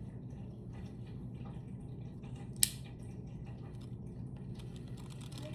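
Dr. Fish Salt Tiger 12000 spinning reel being handled and turned, with faint light ticks and one sharp metallic click about two and a half seconds in, over a low steady hum.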